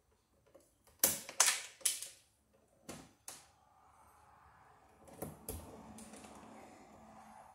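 Hand wire strippers clicking and snapping on electrical wire as the insulation is worked off: a run of sharp clicks, the loudest three close together about a second in, then a few more spaced out, with a soft steady noise of the wire being handled in the last few seconds.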